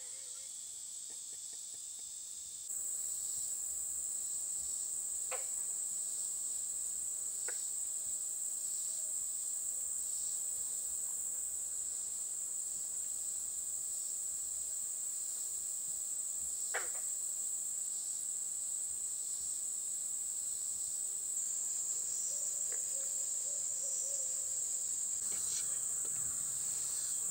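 Steady, high-pitched chorus of late-summer insects such as crickets, which gets louder about three seconds in, with a few faint clicks.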